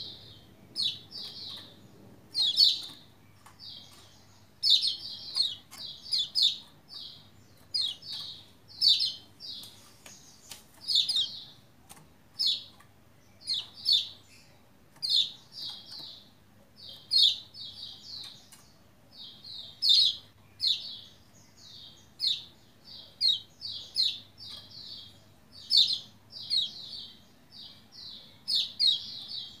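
Yellow white-eye (pleci Lombok, kecial kuning) calling over and over: quick clusters of two to four short, high chirps, about one cluster a second, with faint sharp ticks in between.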